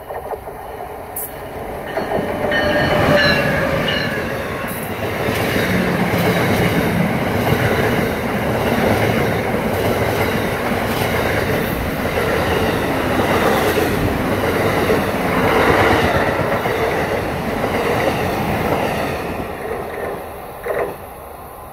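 Amtrak passenger train, led by a Siemens ACS-64 electric locomotive, passing at speed: the sound swells as it arrives, with a brief whine dropping in pitch about three seconds in, then a steady loud rush and clatter of steel wheels on rail as the cars roll by. It fades near the end as the last car clears.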